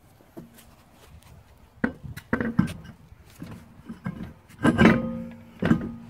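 Steel car wheel clanking against the hub and wheel studs as it is lifted on and fitted: a series of metallic knocks, each ringing at the same pitch, with the loudest about five seconds in.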